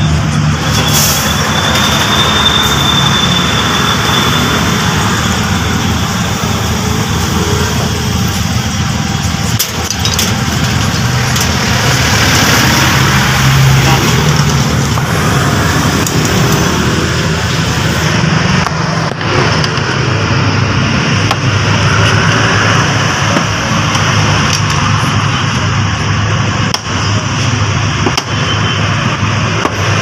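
Steady rumble of motor vehicle engines and road traffic, with a few sharp clicks.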